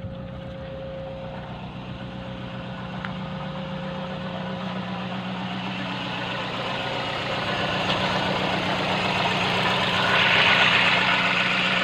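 Four-cylinder car engine idling roughly with a misfire, one cylinder not firing because of a faulty spark plug. The exhaust pulses unevenly, and the sound grows gradually louder toward the end.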